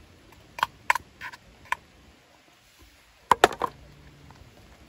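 Eating utensils clinking against the iron griddle plate and cookware during a meal: four light metallic taps in the first two seconds, then a quick, louder cluster of three about three and a half seconds in.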